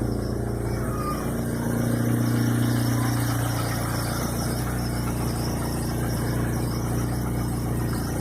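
Chevrolet Vectra engine running steadily, a little louder about two seconds in, with the strange noise that its owner is recording to find out what it is.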